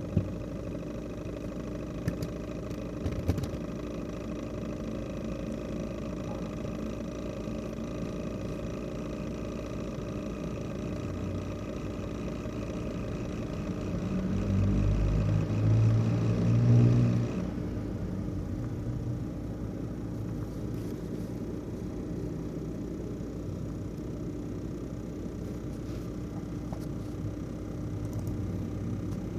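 ASUS X543UA laptop's CPU fan running with a steady whir and a buzzing rattle, typical of a faulty fan. About halfway through the buzz grows louder for a few seconds, then the high hiss of the fan drops off suddenly.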